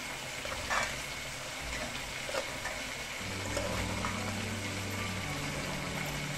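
Rice frying in a metal pan with a steady sizzle. A metal spoon scrapes and knocks against the pan a few times as the rice is stirred.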